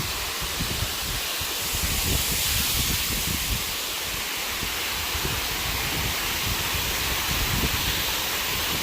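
Waterfall rushing steadily, with wind buffeting the microphone in uneven low gusts.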